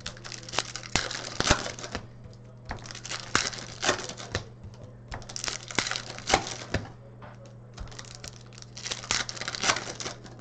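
Hockey card packs being handled and opened: wrappers crinkling and tearing, with cards clicking as they are flipped. It comes in four bursts of about a second and a half each, over a steady low hum.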